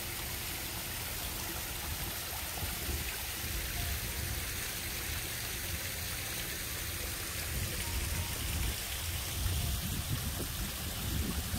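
Steady rush of water from a stone-walled garden pond and water feature, with wind rumbling on the microphone, the rumble stronger near the end.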